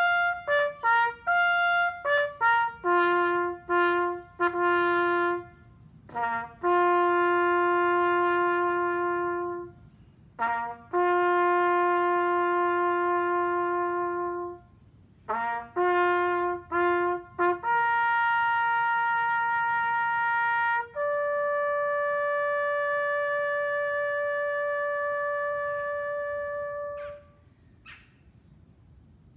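Bugle call played on a solo trumpet. It opens with quick clipped figures, moves to longer held notes, and ends on one long note of about six seconds that dies away.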